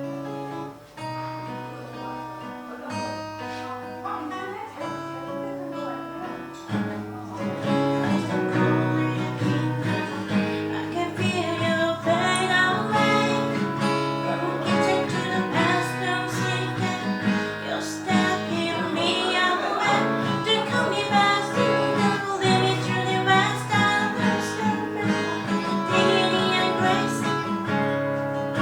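Acoustic guitar playing, lighter picked notes at first, then fuller and louder from about seven seconds in.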